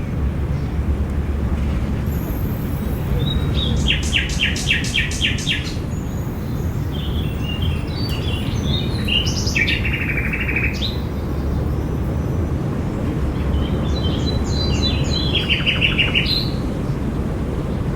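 Songbirds chirping in a park, in short bursts: a fast run of repeated notes about four seconds in, scattered chirps in the middle, and another quick run near the end, over a steady low background rumble.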